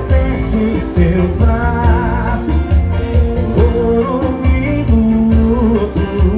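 Live brega music played loud through a PA: a man sings into a microphone over a band, with a steady, heavy bass beat about twice a second.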